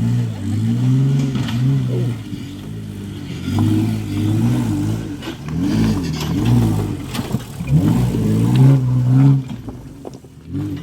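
Off-road vehicle engine revving up and down again and again, as when crawling a 4x4 over rough ground.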